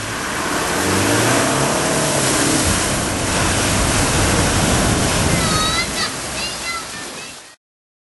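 Mitsubishi Triton pickup fording a river: a loud rush and splash of water from the bow wave, with the engine revving under it. Near the end come a few short high-pitched cries, then the sound cuts off suddenly.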